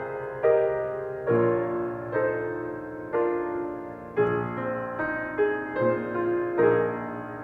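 Piano playing alone in a Christmas carol medley, with a new chord or melody note struck about once a second and left to ring and fade.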